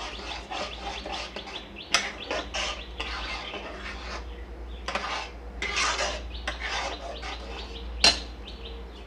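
Metal spatula stirring thick curry gravy in a steel kadhai: repeated scraping strokes against the pan, with sharp clinks about two seconds in and near the end.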